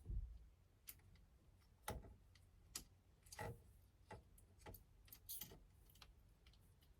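Faint, scattered clicks and light knocks of small hard parts being handled and fitted at a car's steering wheel, with a dull thump right at the start.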